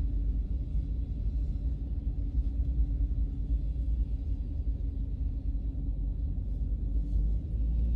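A steady low rumble with a fluttering loudness and no distinct events.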